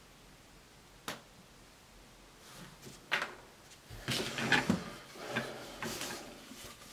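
Knocks and rattles of a Crossman 2250 air rifle being picked up and turned over on cardboard: a single sharp click about a second in, a knock near three seconds, then a run of bumps and rattles.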